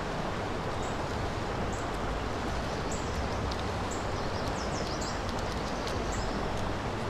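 Steady rush of flowing creek water. A short, high chirp repeats about once a second, likely a bird calling.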